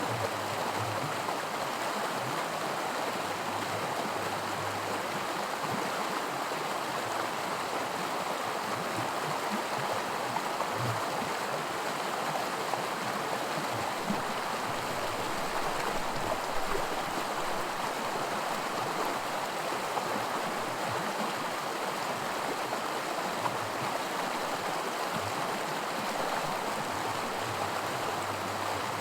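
Small creek rapids: shallow water rushing and splashing over rocks in a steady, continuous rush.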